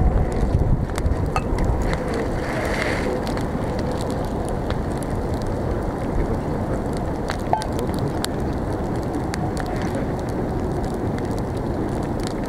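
Wood campfire burning on ice, a steady hiss with sharp crackles and pops scattered through it. A low rumble is stronger in the first couple of seconds.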